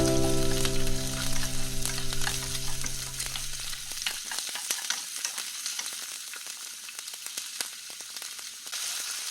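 Food sizzling and crackling in a frying pan, with many small pops. Background music plays over the first few seconds and then fades out.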